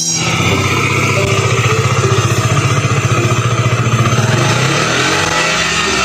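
KTM RC 125's single-cylinder four-stroke engine idling steadily, with a brief change in engine speed near the end.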